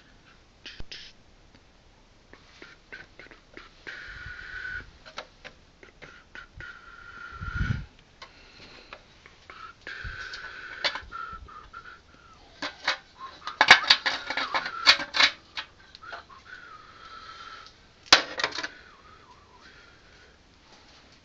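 Clicks, knocks and rattles from a plastic radio-controlled truck model being handled, with a dense run of clicks near the middle and a single loud knock later. Several brief high-pitched whines come and go between them.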